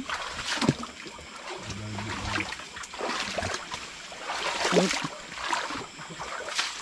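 Water splashing and sloshing in irregular strokes, as from wading or working in shallow water, with a short low hum about two seconds in.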